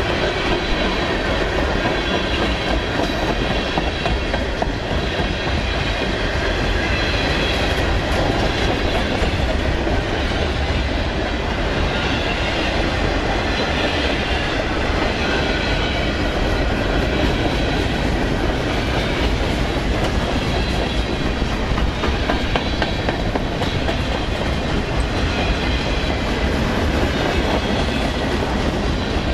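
Freight train cars rolling steadily past, steel wheels running on the rails as tank cars, covered hoppers and boxcars go by.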